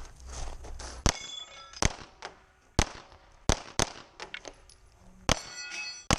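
Pistol shots fired in an irregular string, about seven over six seconds, most followed by the ringing clang of steel plate targets being hit.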